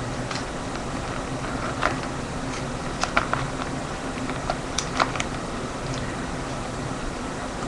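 Clear plastic binder pocket pages crinkling and clicking a few times as a hand handles the sleeved trading cards, the clicks bunched in the middle, over a steady low hum.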